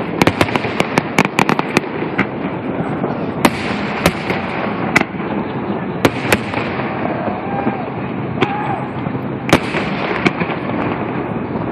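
Aerial fireworks shells bursting: a quick volley of sharp bangs and crackles in the first two seconds, then single reports about every second, under a steady wash of background noise.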